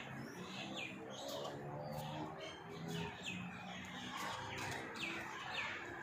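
Rose-ringed (Indian ringneck) parakeet calling in short chirps, each falling in pitch, repeated about every half second.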